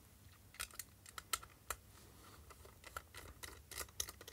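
Faint, irregular small clicks as a precision screwdriver and a plastic camping-lantern body are handled and the screwdriver tip is set into a small base screw.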